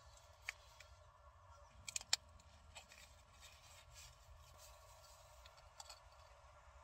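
Faint clicks and crinkles of a small coffee pod and its packaging being handled and opened by hand, with a quick run of sharp clicks about two seconds in, over a faint steady hum.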